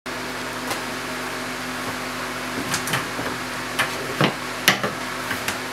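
A wooden yardstick knocking and scraping against a sign board on the wall as it is handled into place: a few short, sharp knocks, the loudest about three-quarters of the way through. Under them runs a steady room hum.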